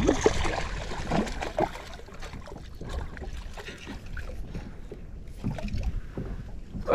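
A small largemouth bass splashing and thrashing at the water's surface as it is reeled up to the side of a boat, in short bursts in the first second or so and again near the end, over a low rumble.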